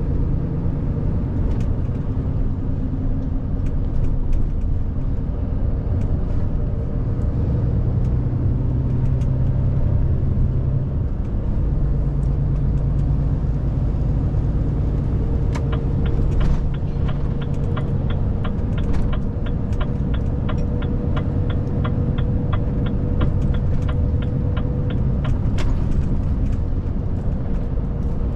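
Renault T High 520 truck's six-cylinder diesel engine running with a steady low rumble. A little past halfway, a regular fast ticking starts, runs for about ten seconds, then stops.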